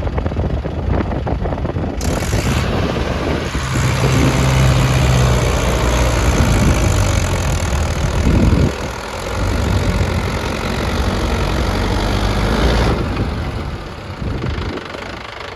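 Heavy diesel machinery engine running, working harder and louder from about four seconds in with a brief dip midway, then easing back near the end.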